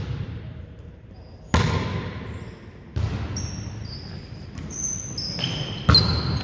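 A volleyball being struck three times in a rally on an indoor court: sharp, echoing smacks about a second and a half in, about three seconds in and near the end. Between the second and third hits, athletic shoes squeak several times on the gym floor.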